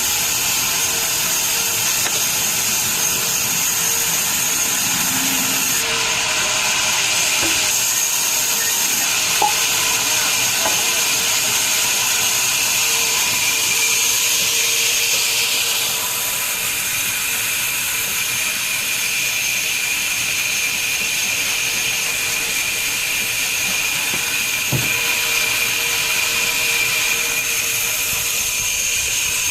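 Sawmill machinery running steadily: a continuous high-pitched saw whine over a loud hiss, with a few light clicks. The mix changes slightly about six and sixteen seconds in.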